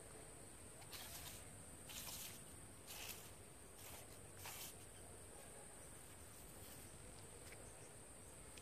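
Faint, steady, high-pitched insect chirring. About five short scratchy noises come in the first five seconds.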